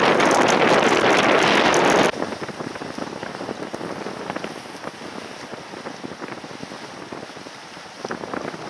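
Wind buffeting the microphone loudly for about two seconds and cutting off suddenly, then a quieter steady rush of wind and river water around the moving ferry.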